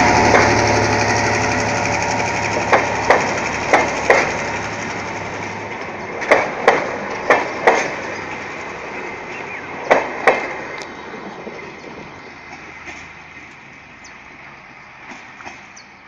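GM G22 diesel locomotive running past and pulling away, its engine fading, while the coaches' wheels clack over a rail joint in quick pairs, about five pairs, then fainter ones as the train recedes.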